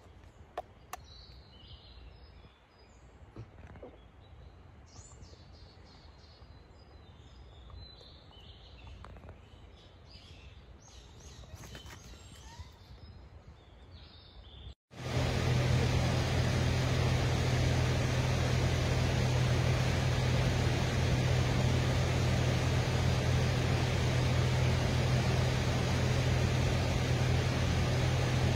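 Quiet forest with a few faint bird chirps. Then, from a cut about halfway through, the loud steady rush of a fast, rocky mountain stream.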